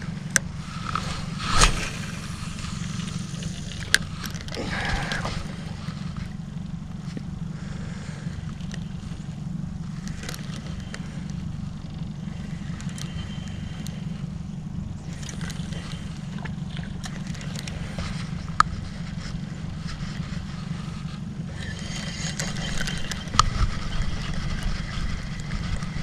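Boat motor running steadily with a low hum, and a few scattered clicks and knocks over it.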